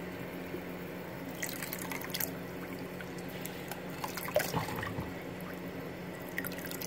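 A thin stream of tap water running into shallow bath water, with light splashes at about one and a half to two seconds in and again about four and a half seconds in.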